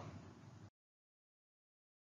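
Near silence: faint room tone that cuts off to complete digital silence well under a second in.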